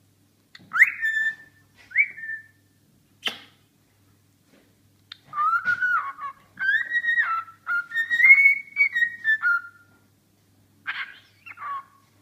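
Cockatiel whistling: two short rising whistles, then a longer warbling whistled tune of gliding notes, and a few short chirps near the end. A single sharp click comes between the first notes and the tune.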